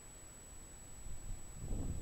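Wind buffeting the microphone: an uneven low rumble that picks up about a second in and grows stronger.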